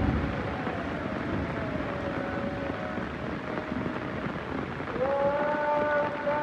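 Steady heavy rain, with sustained pitched tones held over it that grow louder about five seconds in.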